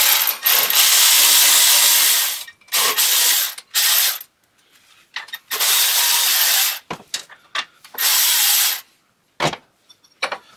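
Cordless electric ratchet running in about five bursts, a long one first and then shorter ones, spinning out the water pump pulley bolts. Scattered metallic clicks and knocks between the bursts and near the end.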